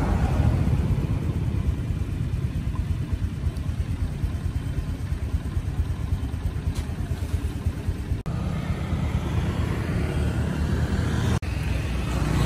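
Steady low rumble of motor vehicles, like traffic or a vehicle in motion, broken by two split-second dropouts about two-thirds of the way through and near the end.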